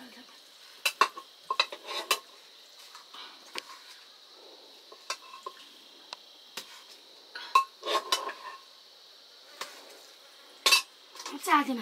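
Scattered clinks and knocks of metal dishes and eating utensils, coming in small clusters with gaps between. Near the end there is a short falling scraping sound.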